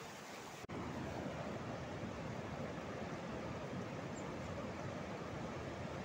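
Steady rush of river water over rapids and a low waterfall. The sound cuts out for an instant about two-thirds of a second in and comes back a little louder.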